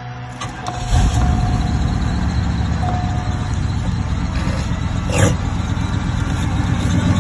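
1991 Cadillac Eldorado's 4.9-litre V8, freshly fitted with new spark plugs, starting up about a second in and settling into a steady idle, heard from inside the cabin.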